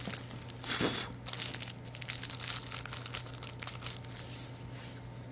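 Plastic fortune-cookie wrapper crinkling as it is torn open, with one loud rip about a second in, then crackling handling that dies down after about four seconds.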